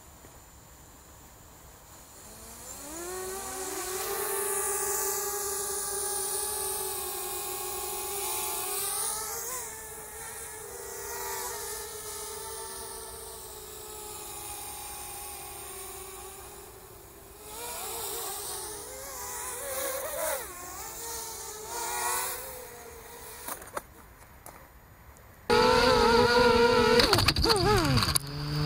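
Small racing quadcopter's brushless motors spinning up after arming and running with a buzzing whine, its pitch rising about two seconds in, holding, then wavering up and down with the throttle. Near the end a sudden, much louder sound with different steady tones takes over.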